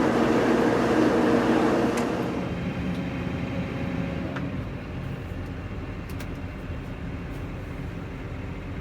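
Loader tractor's diesel engine running, then shut off about two seconds in with a click; a low rumble fades away afterwards.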